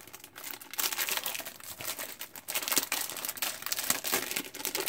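Clear plastic cello packaging crinkling as it is handled, a continuous run of sharp crackles.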